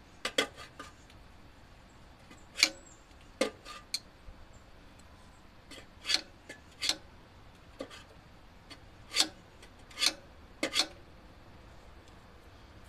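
Handling noise from hands working in an engine bay: about a dozen short rubs, scrapes and clicks, scattered irregularly and separated by quiet stretches.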